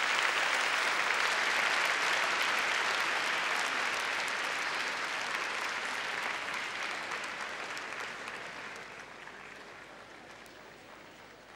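Large audience applauding, the clapping dying away gradually over the second half.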